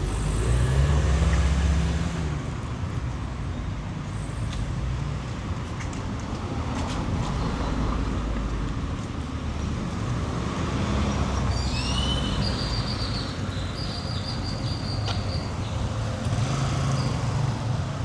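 Street traffic: vehicle engines running and passing, the loudest in the first two seconds, with a brief high-pitched sound about twelve seconds in.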